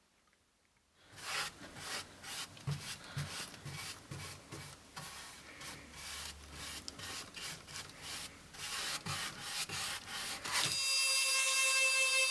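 Mini CNC engraving and milling machine cutting into material, a rasping, scraping sound of many quick irregular strokes that starts about a second in. The cutting stops abruptly near the end, and music with sustained tones takes over.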